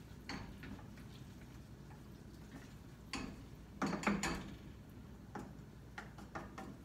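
A wooden spoon stirring in a stainless steel frying pan, knocking and scraping against the pan in scattered short clicks, with the loudest cluster of knocks about four seconds in.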